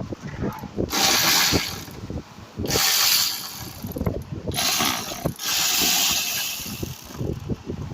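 Hand ratchet clicking in four short spurts as it backs out a 10 mm ground-wire bolt, with small knocks of the tool between spurts.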